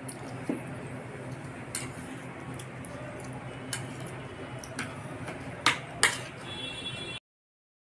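Spoon and fork clicking against plates and a small bowl while eating, a few sharp clinks over a steady low hum, the two loudest close together about six seconds in. The sound cuts out completely near the end.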